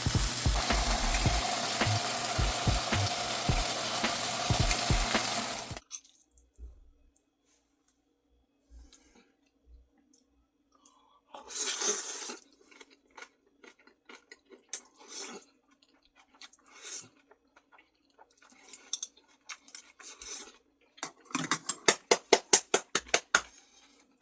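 Food sizzling and frying in a hot pan, cutting off suddenly about six seconds in. After that come sparse small clicks and rustles, and a quick run of about a dozen clicks near the end.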